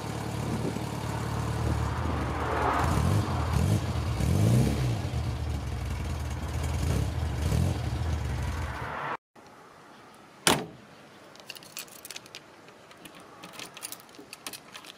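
1968 Morris Minor's four-cylinder A-series engine running, heard at the exhaust, revving up and back down a couple of seconds in; the engine sound cuts off suddenly after about nine seconds. Then comes one sharp click, followed by keys jangling at the car's door lock.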